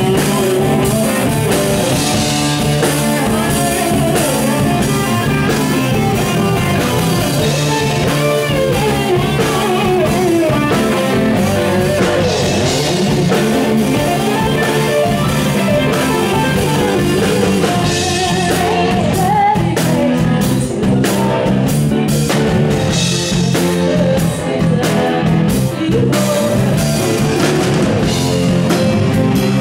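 Live rock band playing loudly and steadily: electric guitars, electric bass, keyboards and a drum kit.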